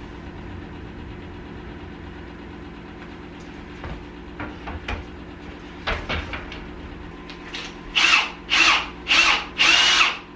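Cordless drill driving screws into a wooden crib frame in short pulses, four quick bursts of motor whine near the end, after a few light knocks and clicks of handling the parts over a low steady hum.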